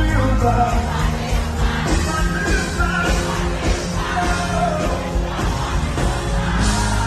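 Live concert music played loud through a PA: an Afrobeats song with a heavy, steady bass and voices singing and shouting over it.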